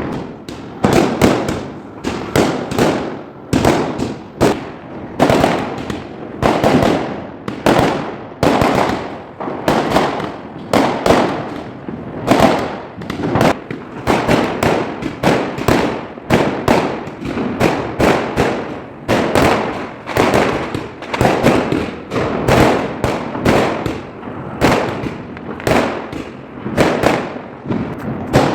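Fireworks and firecrackers going off in a continuous barrage, about one to two sharp bangs a second, each trailing off in a short echo.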